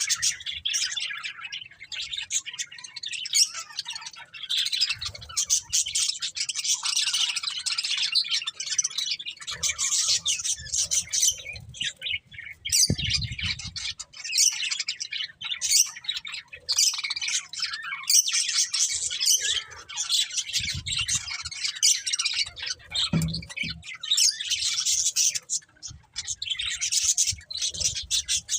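Budgerigars chirping and chattering continuously, rapid high twittering calls with occasional squawks, with a few soft low bumps.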